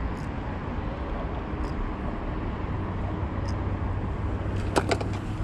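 Steady road-traffic noise with a low hum. Near the end, two sharp clicks in quick succession come from a hook remover being worked on a small fish.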